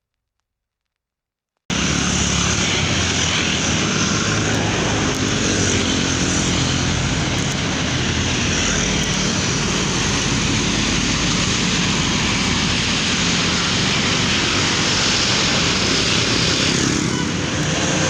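Silence for nearly two seconds, then a sudden cut to a loud, steady rush of noise with a running engine's low drone beneath it.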